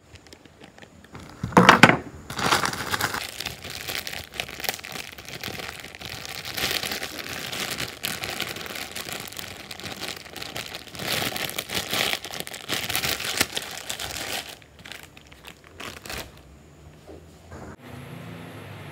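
Plastic bread bag crinkling as it is squeezed and handled close to the microphone, a dense crackle that is loudest about two seconds in. The crinkling stops about three-quarters of the way through, leaving a few soft taps.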